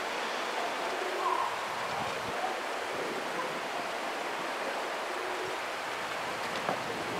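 A steady, even rushing noise with a few faint short tones over it. No regular bell strokes stand out.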